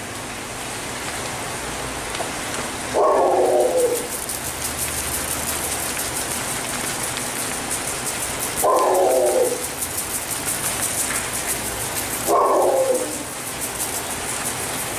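A dog barking three times, a few seconds apart, each bark falling in pitch. Under it a steady hiss and fine patter of dry risotto rice grains poured into a pan of simmering broth.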